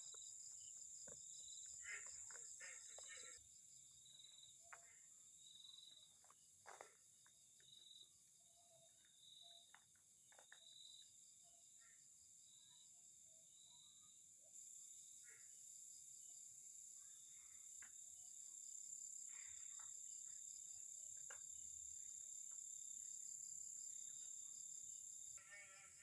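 Night insects: a steady high-pitched drone, with a second insect chirping regularly a bit more than once a second. The drone grows louder about halfway through, and faint scattered clicks sound underneath.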